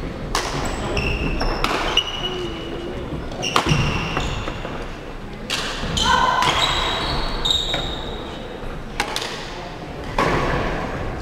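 Badminton rally sounds in a large echoing hall: racquets striking the shuttlecock in sharp knocks, with short high squeaks of shoes on the wooden court floor in between.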